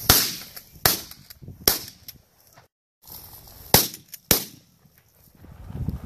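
Shotgun shots: three in quick succession about a second apart, then after a short break two more close together, each a sharp crack with a short echo.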